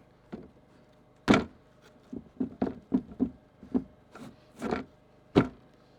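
Knocks and taps of a composite fascia board being handled and fitted into place against wood. There is a sharp knock about a second in, then a quick run of lighter knocks, and another sharp knock near the end.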